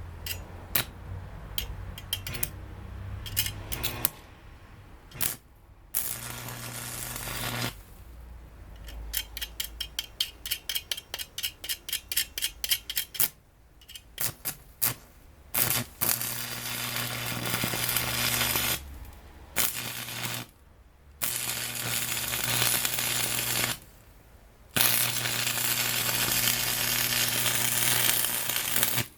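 Arc of a 100 V constant-voltage wire welder crackling and buzzing through several welding runs of a few seconds each, with a steady hum under the crackle. In the middle comes a string of short arc strikes, about three a second, as in stitch welding.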